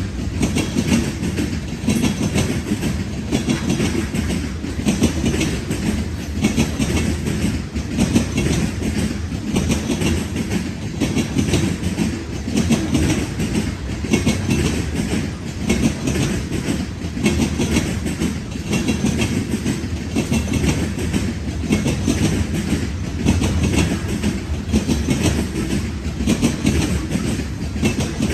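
Freight train cars rolling steadily past, with a continuous rumble and wheels clicking over the rail joints.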